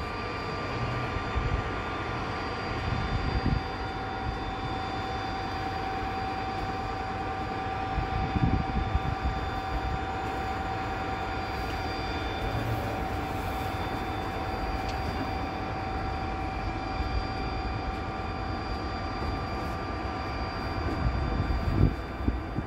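Narrow-gauge White Pass & Yukon Route passenger train running along the track, heard from an open coach platform: a steady rumble of wheels on rails with a steady high ringing tone over it, and wind gusting on the microphone.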